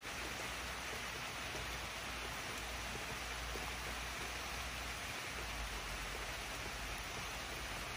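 Steady rain falling on grass and trees, an even hiss with no distinct drops or other events.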